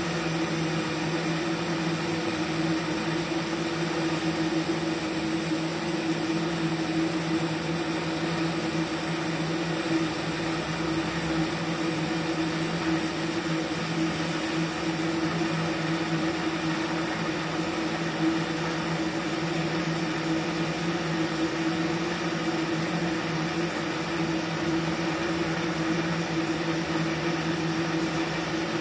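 TIG arc from a MultiPro TIG 315 AC/DC inverter welder in DC pulse mode, burning steadily: an even hum with hiss that never breaks.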